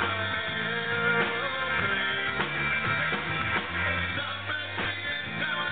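Rock band playing live: distorted-free electric guitar chords over bass notes and a drum kit keeping a steady beat.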